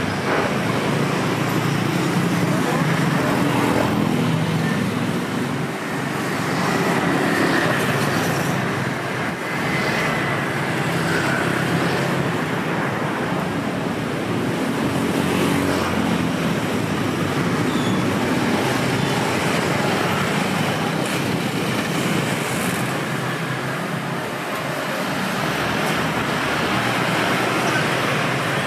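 Street traffic: vehicle engines running and passing steadily.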